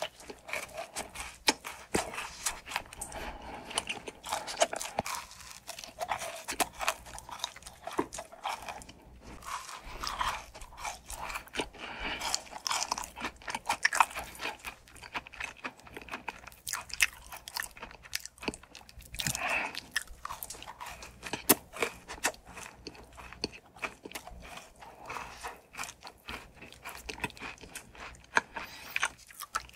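Close-miked biting and chewing of crunchy fried food: a dense, irregular run of crisp crunches with wet chewing in between.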